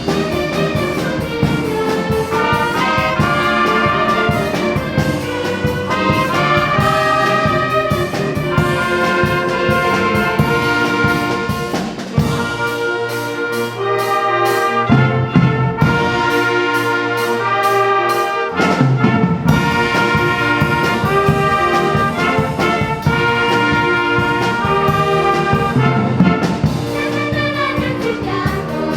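A brass ensemble of trumpets and trombones playing a tune, with the low bass parts dropping out for a few seconds midway before coming back in.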